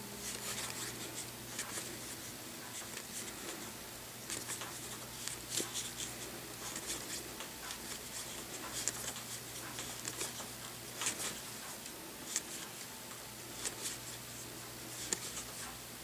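Magic: The Gathering cards being slid one at a time off a hand-held deck onto another stack. Each card makes a short, papery swish, about one a second, with slightly irregular spacing.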